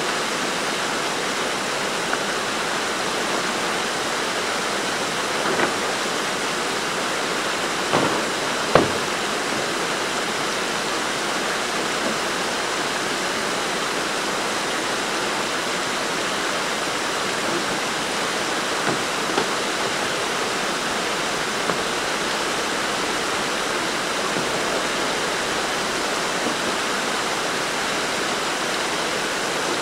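Steady rush of a shallow, fast-flowing river running over stones. Two sharp knocks cut through it about eight and nine seconds in, with a few fainter clicks elsewhere.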